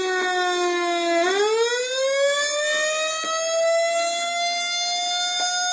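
Fire truck siren wailing in one continuous tone. Its pitch sinks slowly, then about a second in climbs and holds higher.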